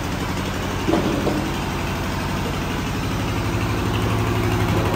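An engine running steadily at idle, with an even low pulse.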